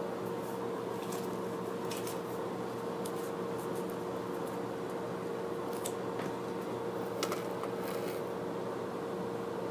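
A steady background hum with a faint whine, under light handling sounds: small clicks and rustles as hands handle thin metal heart-shaped tins and a paper sticker, with a slightly sharper tap a little past seven seconds in.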